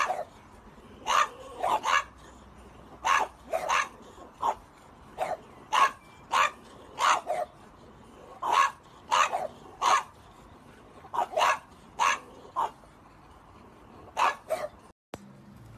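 French Bulldogs barking: two dozen or so short, sharp barks, many in quick pairs, with gaps of about a second between them. The barking stops abruptly near the end.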